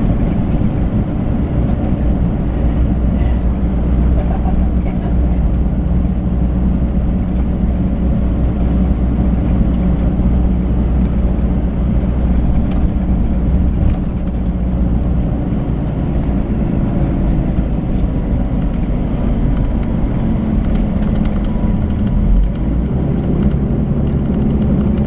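Volvo B12B coach's 12-litre six-cylinder diesel engine running steadily under way. About 22 seconds in, the engine note dips briefly and then climbs in pitch.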